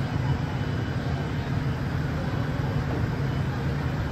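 Artificial tornado generator's fans running: a steady low rumble and rush of air.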